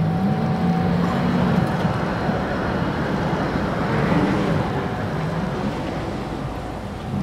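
Tatra T3M tram running along the street, a low humming whine from its drive that rises at first and then wavers up and down over a steady rumble of wheels on rails.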